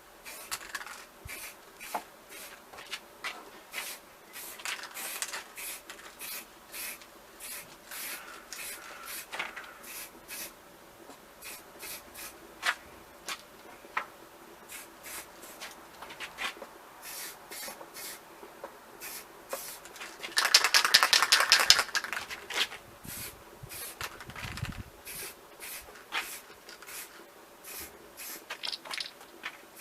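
Scattered clicks and rubbing of hands handling a workpiece, with one loud aerosol spray-paint hiss of about a second and a half roughly two-thirds of the way through.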